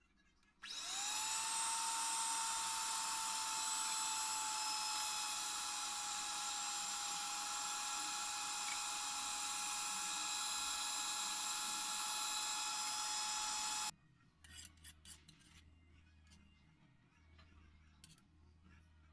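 Electric hand blender switched on about a second in, spinning up quickly to a steady high-pitched whine as it blends curd in a metal pot. It cuts off abruptly a few seconds before the end, and faint clinks and scrapes of a spoon against the pot follow.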